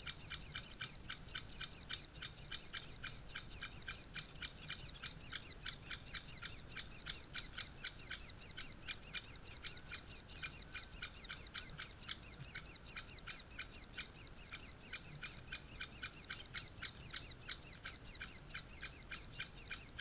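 Great spotted woodpecker nestlings begging in the nest hole: a constant fast chatter of short, high, downward-sliding calls, about five a second.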